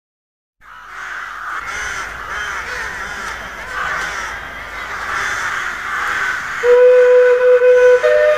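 A dense chorus of many overlapping bird calls fades in and builds. About two-thirds of the way through, a loud, steady whistle-like tone comes in, joined near the end by a second, higher tone.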